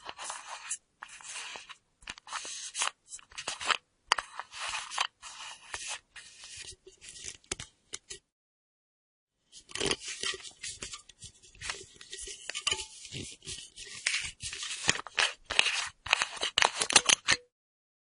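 Screw cap of a full metal flask being turned on its threads: quick scraping, clicking strokes in two runs of about eight seconds each, broken by a second of silence.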